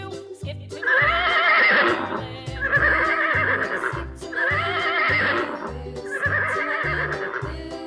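Horse whinny sound effect, four quavering neighs about a second long each, repeated over children's background music with a steady beat.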